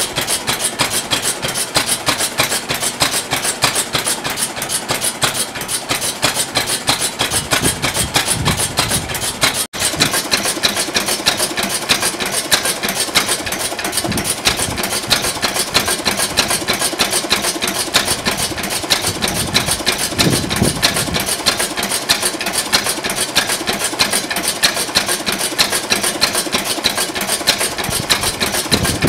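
A 2¼ hp Petter Handyman single-cylinder paraffin oil engine running steadily, with a fast, even mechanical clatter.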